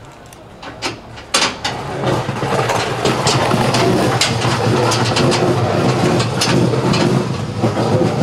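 A few sharp metal clinks, like hand tools knocking on metal, then from about two seconds in a loud, steady engine-like drone builds up and holds.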